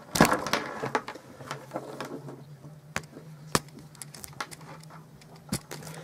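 Handling noise from a battery charger's leads: scattered clicks and knocks as the SAE two-pin plug of the ring-terminal lead is unplugged and the cables are moved about on a wooden table, over a steady low hum. The sharpest clicks come just after the start and near the middle.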